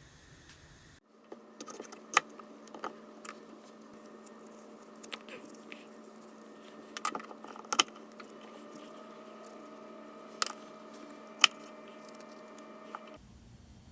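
Scattered sharp clinks and taps over a steady hum, with a second steady tone joining about eight seconds in.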